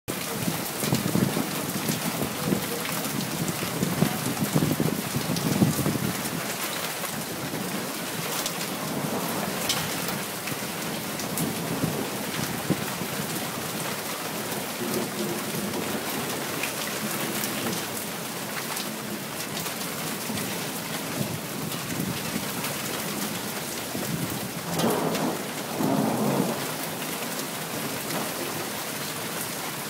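Rain falling steadily in a thunderstorm, with thunder rumbling low through the first several seconds and two short, louder rumbles near the end.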